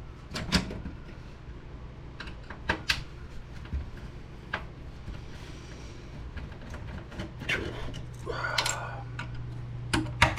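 Scattered clicks and knocks of plastic printer parts being handled, with a short rattling scrape about eight seconds in, as an HP Deskjet 2050 inkjet printer is taken apart and its ink cartridges pulled out, over a low steady hum.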